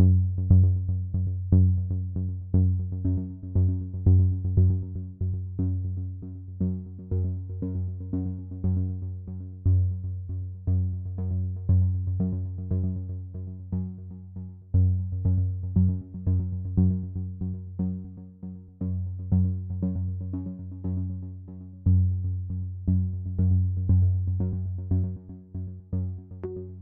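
Electronic background music: a synthesizer playing repeated notes over a steady bass line.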